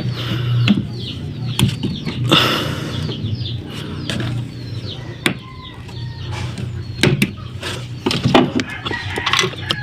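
Chickens clucking and chirping, over a steady low hum, with scattered sharp clicks and knocks.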